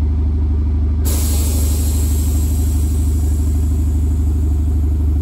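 Turbocharged four-cylinder engine of a 2017 Chevrolet Camaro idling with a steady low hum. A steady hiss joins it suddenly about a second in.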